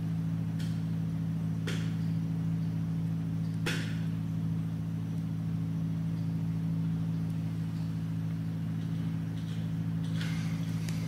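A steady low mechanical hum at a constant level, with three faint short clicks in the first four seconds.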